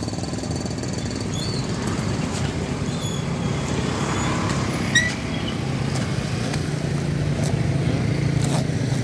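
Steady low rumble of a motor vehicle engine running close by, with a few short clicks and scrapes from a knife cutting packing tape on a cardboard box.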